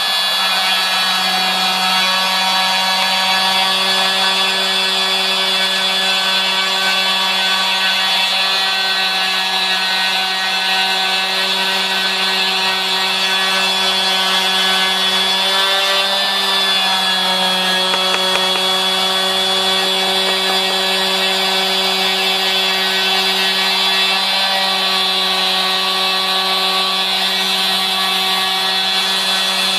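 Router spindle of a hobby CNC machine running with a steady whine while its small end mill cuts gear teeth out of a wooden board. The pitch dips slightly now and then as the cutter takes load.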